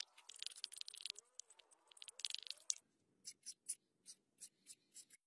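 Quick scraping or scratching strokes, dense at first, then about eight separate strokes at roughly three a second, stopping abruptly near the end.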